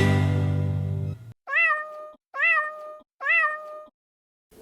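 A domestic cat meows three times in short, evenly spaced meows, each rising then falling in pitch, as a sound effect. The last chord of music fades out just before.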